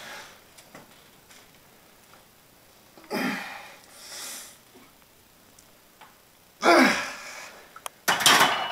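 Heavy breathing of a man bench pressing a loaded barbell: a few sharp, forceful exhales between quiet stretches, the loudest a strained grunt about two-thirds of the way in.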